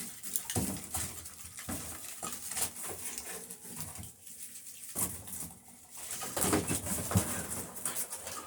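Plastic packaging crinkling and small items knocking together as they are handled and unpacked, in quick, irregular rustles and knocks.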